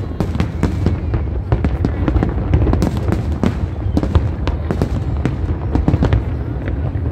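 A big fireworks display: aerial shells bursting in rapid succession, a dense run of sharp pops and crackles over a continuous low rumble of booms.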